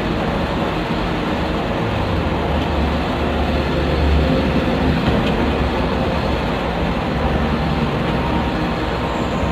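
Intercity coach bus driving: a steady, loud engine and road rumble.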